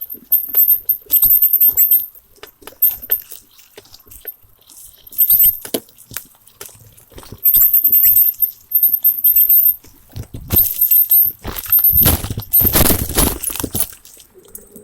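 Bicycle squeaking in repeated short, high-pitched squeals while riding over a rough trail, with scattered clicks and rattles. Near the end comes a louder rush of scraping, rustling noise lasting a few seconds.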